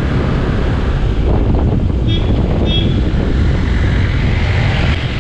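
Steady wind buffeting on the microphone of a camera riding on a moving Honda scooter, with the scooter's running noise underneath.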